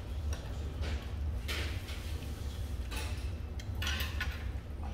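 Metal chopsticks clinking and scraping against dishes and an earthenware ttukbaegi pot while food is picked up for a cabbage-leaf wrap: a few separate short clinks over a steady low hum.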